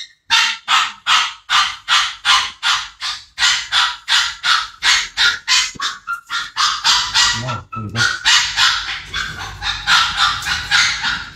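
Labrador licking at its sore, injured hind leg with quick wet laps, about two or three a second, running closer together near the end. The licking is a sign of pain in the foot.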